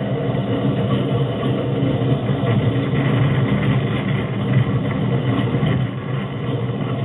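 Engine of a modified Suzuki Samurai rail cart running steadily as it drives along the rails.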